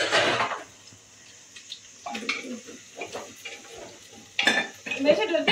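Steel dishes and utensils clinking and clattering at a kitchen sink. There is a loud clatter at the start, scattered knocks through the middle and another burst of clatter near the end.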